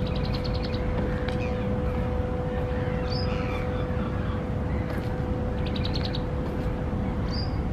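Harbour ambience: a steady low rumble under a constant hum, with birds calling over it: a quick run of short repeated notes twice and a few single short calls.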